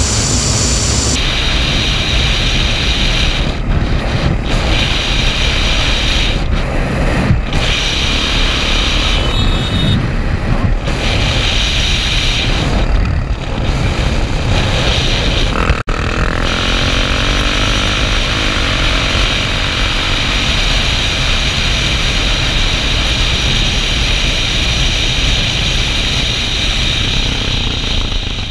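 Yamaha TT600R single-cylinder four-stroke motorcycle engine running at road speed under heavy wind noise on a helmet-mounted camera. The hiss drops out briefly several times, and the engine note rises and falls for a few seconds past the middle.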